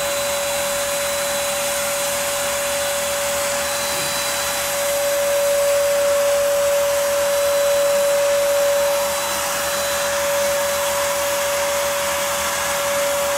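Electric HVLP paint sprayer running steadily, spraying Plasti Dip: a constant motor whine over the hiss of air and atomised dip, swelling slightly for a few seconds midway.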